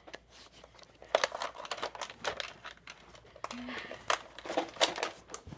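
Handling noise: clothing rustling and scraping against the camera microphone, with scattered clicks and knocks. Faint voices come through now and then.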